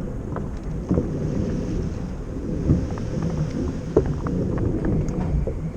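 Wind buffeting the microphone and water moving around a fishing kayak at sea, a steady low rumble broken by scattered small knocks and splashes.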